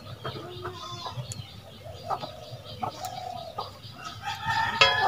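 Chickens clucking, with short calls scattered throughout and one louder, longer call near the end.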